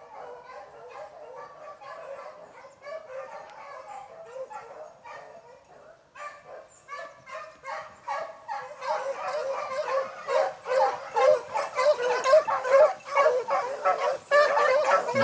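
A pack of beagles baying in chorus as they run a rabbit's track, many short overlapping cries. The baying grows much louder past the midpoint as the hounds close in.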